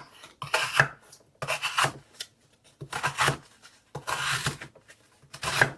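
Kizer Hare compact fixed-blade knife slicing through cardboard in about five strokes, each a short scratchy rasp, roughly a second apart.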